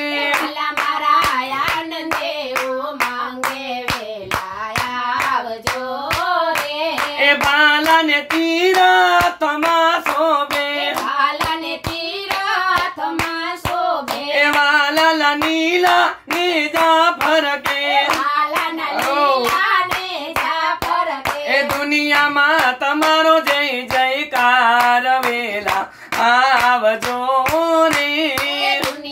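A man and two women singing a Gujarati devotional dhun together, keeping time with a steady rhythm of hand claps.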